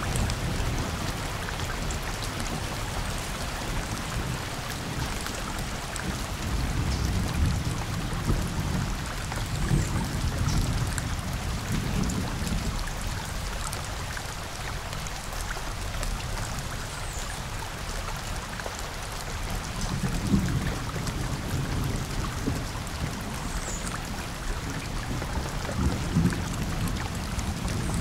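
Steady rain falling on a forest, a continuous patter of drops on leaves and wet ground. Low rumbles of thunder swell up several times, about a third of the way in, again past two-thirds, and near the end.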